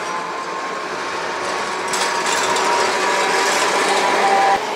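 Vintage Milan "Ventotto" tram running along street rails: steel wheels rumbling on the track, with a thin metallic whine and squeal. It grows louder as the tram draws close and passes.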